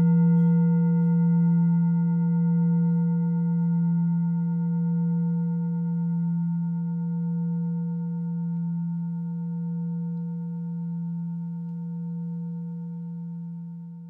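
Tibetan singing bowl tuned to E at about 164 Hz, a single struck note ringing on in a long, gently wavering tone that slowly fades away.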